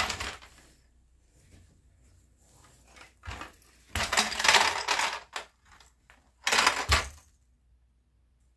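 Plastic shape-sorter activity cube being tipped and shaken, with the loose plastic shape blocks inside clattering. It comes in three bursts of rapid rattling: a short one, a longer one, and a last one near the end.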